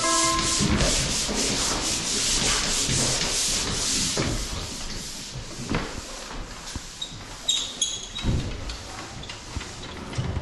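Drywall pole sander scraping back and forth over dried joint compound in quick, even strokes, loud for the first few seconds. After that it is quieter, with a few sharp metallic clinks and knocks.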